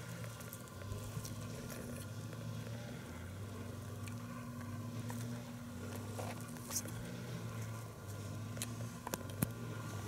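Light rustling and a few soft sharp ticks in grass close to the microphone, over a steady low hum.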